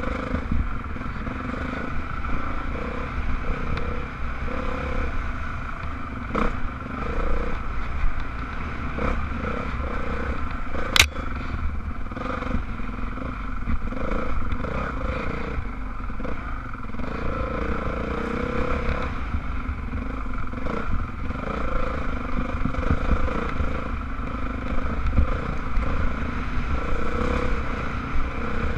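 Dirt bike engine running steadily on a rough downhill trail, with scattered knocks and rattles from the bike over the ground and one sharp click about eleven seconds in.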